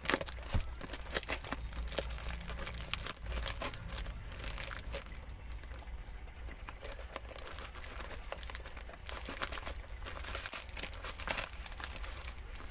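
Plastic parcel wrapping and packing tape crinkling and tearing as the package is cut with scissors and pulled open by hand, in irregular crackles.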